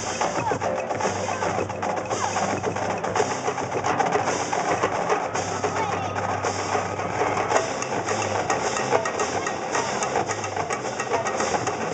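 Marching band drumline playing a cadence, with fast snare strokes and bass drum, over crowd chatter.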